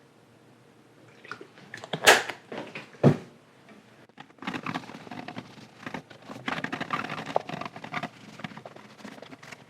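Two sharp knocks of handling about two and three seconds in, then an uneven scratchy rubbing as a cloth wipes isopropyl alcohol over the band saw's cast iron table.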